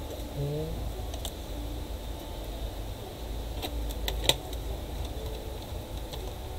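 Small laptop screws and plastic parts being handled: a few scattered light clicks and taps, the sharpest about four seconds in, over a low steady hum.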